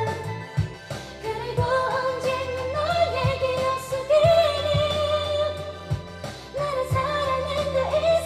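A woman singing a Korean pop song into a microphone over a karaoke backing track with a steady bass line and drum beat.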